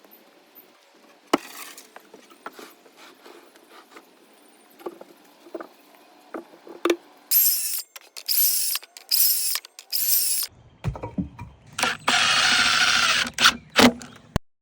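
Power drill running in four short bursts and then one longer run on wooden boards, after a stretch of light knocks and clicks.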